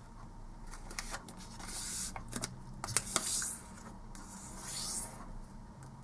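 A square sheet of origami paper being folded corner to corner and pressed flat with the fingers. There are three soft swishes of paper rubbing as the crease is smoothed down, with a few light crinkles and taps between them.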